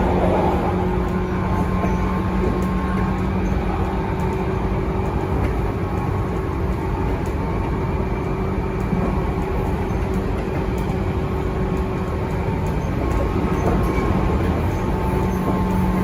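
Tobu 9000 series electric train car running, heard from inside: steady rolling rumble under a set of fixed-pitch tones from its armature chopper control, which fade in the middle and come back near the end. The chopper is making its normal sound, its earlier odd noise now cured.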